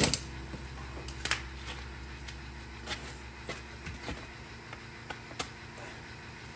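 Scattered knocks and clunks from a car wheel and tyre being handled during a tyre change, a short loud burst at the very start and several sharper knocks after it, over a low steady hum.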